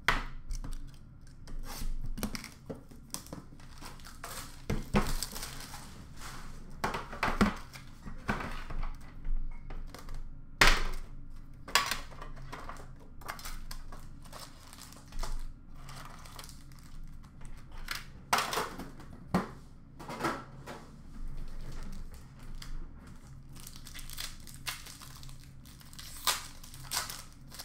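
Upper Deck hockey card pack wrappers being torn open and crumpled, in irregular crackles and rips, with cards being handled.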